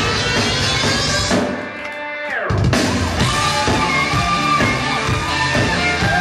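Live electronic dance music from violin, keyboard and drums. About a second and a half in, the bass and drums drop out briefly under a falling sweep, then the full beat comes back at about two and a half seconds with the violin playing held, sliding notes over it.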